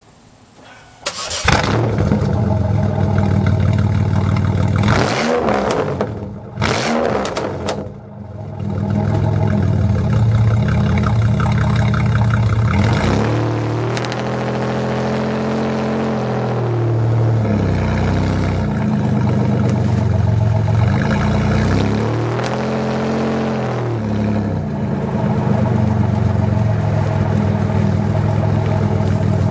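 Straight-piped 3800 V6 exhaust of a Pontiac Grand Prix GT, heard right at the tailpipes. The engine comes to life about a second in and is blipped twice. It then pulls away, its pitch climbing and falling as it goes through gear changes.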